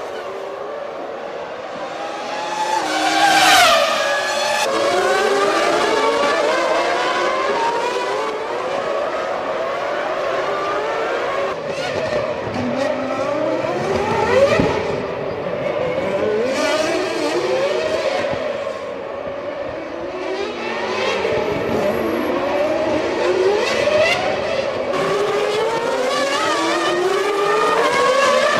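1999 Formula One cars' 3-litre V10 engines revving up and down through the gears, several cars at once, with repeated rising and falling pitch. One car passes loudly about three to four seconds in.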